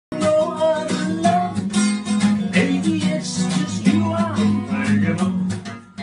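Music with a strummed acoustic guitar and a steady bass line.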